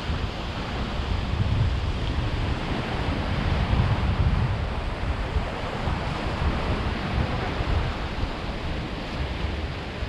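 Wind buffeting the microphone in uneven low gusts, over a steady wash of waves or moving water.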